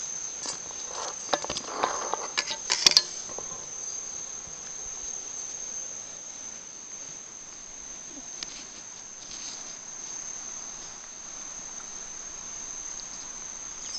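A steady high-pitched insect trill, typical of crickets, runs on without a break. In the first three seconds a vervet monkey eating from a stainless steel bowl makes a quick run of clicks and clinks, the loudest near three seconds.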